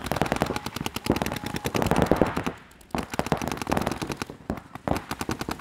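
Paintball markers firing rapid strings of shots, broken by a short lull about two and a half seconds in.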